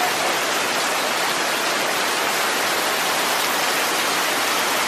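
Heavy tropical storm rain pouring down in a steady, dense hiss.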